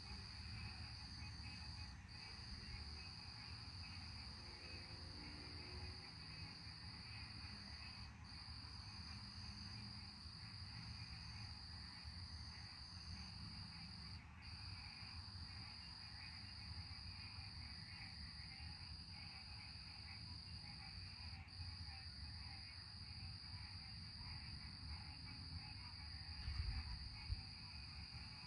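Night insect chorus: a steady, high, shrill drone that breaks off for a moment a few times, over a low rumbling background. A couple of soft low thumps come near the end.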